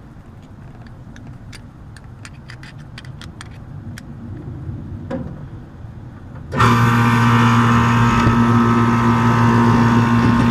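Air conditioner condensing unit starting up suddenly about two-thirds of the way in, its compressor and condenser fan then running loud and steady with a strong electrical hum. Before it, a quick run of light clicks.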